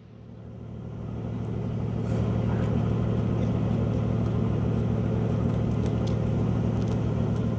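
An engine idling, a steady low hum with a fast, even throb, swelling in over the first two seconds and then holding steady.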